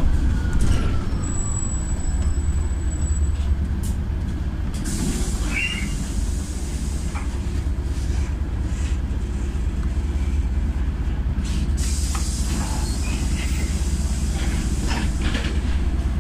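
Cabin of a LiAZ 5292.67 city bus: the steady low rumble of its YaMZ-53624-40 compressed-natural-gas engine as the bus slows to a near stop. Air-brake hisses come about five seconds in and again around twelve seconds.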